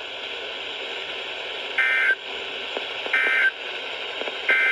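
Three short, shrill two-tone data bursts, evenly spaced about a second apart, over a steady hiss of radio static: the EAS/SAME end-of-message code that NOAA Weather Radio sends to close a broadcast alert or test.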